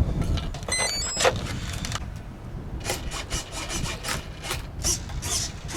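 Rustling and scraping handling noises over a low rumble, with a quick run of short electronic beeps at stepping pitches about a second in, typical of an electric R/C plane's speed controller arming after power-on.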